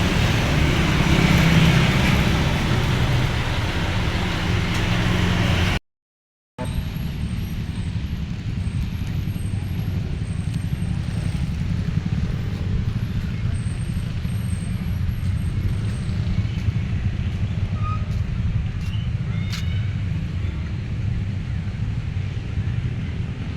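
Large vehicle engine and road noise: loud, hissy running with a heavy low rumble for about six seconds, then after a short break a steadier, quieter low engine rumble.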